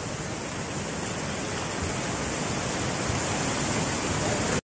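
Muddy flash-flood torrent carrying debris, rushing steadily and growing slightly louder, then cutting off suddenly near the end.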